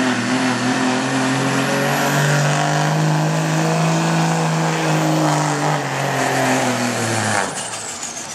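Dodge Ram pickup's Cummins inline-six turbo-diesel running hard at high revs under full load while pulling the sled; its pitch holds steady. About seven seconds in the throttle lifts and the engine drops away suddenly, leaving a high whistle winding down.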